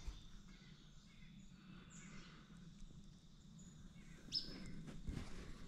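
Quiet riverbank ambience with a faint low hum and a few faint bird calls: a short high call about two seconds in and a sharper rising call a little after four seconds.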